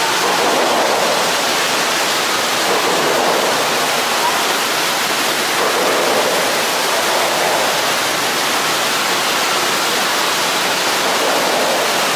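Steady, unbroken rushing noise like falling water.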